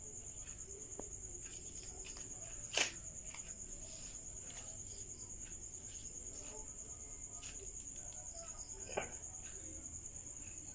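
Crickets chirping steadily in a high, continuous trill. A sharp tap cuts through about three seconds in, and a softer one comes near the end.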